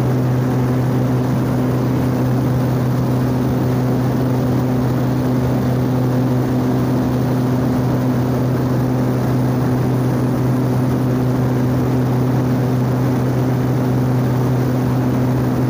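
Steady drone of a small propeller plane's engine and propeller, heard inside the cabin in level cruise, with a constant low hum and rushing air noise that never changes.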